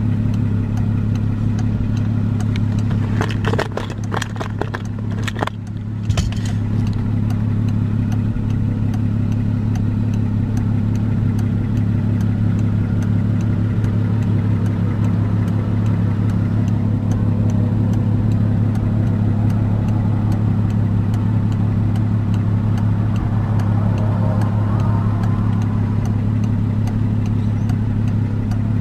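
Volkswagen Jetta's engine idling steadily, heard from inside the cabin, with a short run of clicks and knocks about three to six seconds in.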